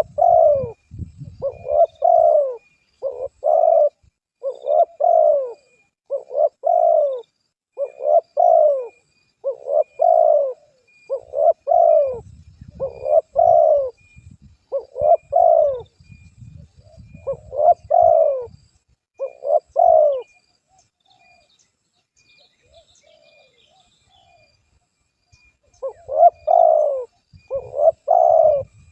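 Dove cooing: short coo notes repeated about once a second, falling silent for several seconds around two-thirds of the way through, then starting again near the end.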